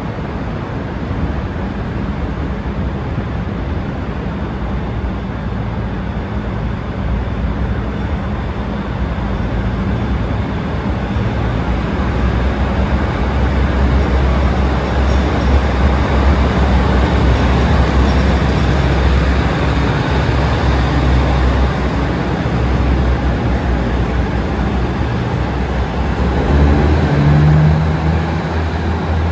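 State Railway of Thailand NKF-class diesel railcar set running into the station and past the platform, its diesel engines giving a steady low drone under wheel and rail noise. It grows louder as the train draws alongside.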